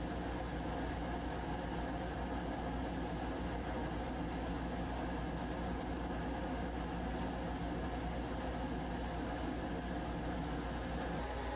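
Steady mechanical hum made of several steady tones, even and unchanging in level, with its lower part dropping away just before the end.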